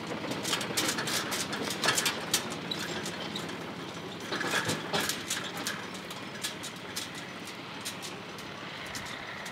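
Small farm tractor's engine running as it pulls a loaded trailer over a stony dirt track, the trailer clattering and knocking, fading as it drives away.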